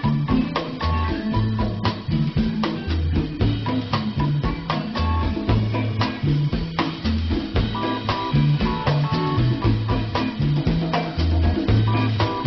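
Music with a drum kit and bass playing a steady beat.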